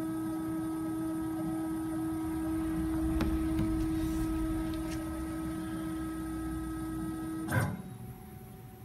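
Techno HD CNC router's Z-axis drive whining steadily as it lowers the bit slowly toward the tool touch-off plate during automatic tool calibration. A sharp click comes near the end and the whine stops, as the bit reaches the plate.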